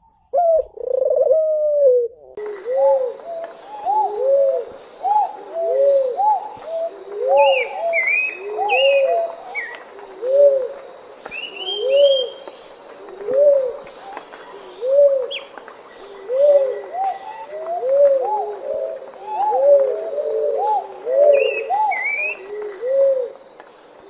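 Cuckoo-doves cooing: two birds, one lower and one higher, each repeating a short rise-and-fall coo about once a second, overlapping. Small birds chirp faintly above them.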